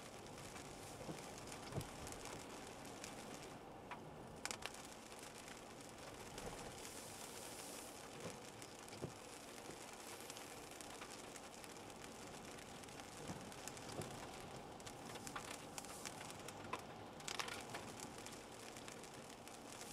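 Light rain falling, with scattered drops landing in sharp little taps.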